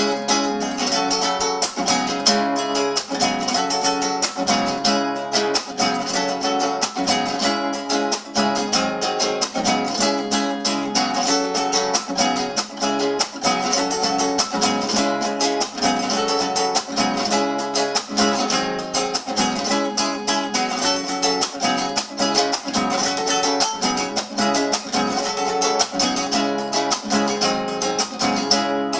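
Acoustic guitar strummed steadily in a quick, driving rhythm, playing an improvised carnavalito.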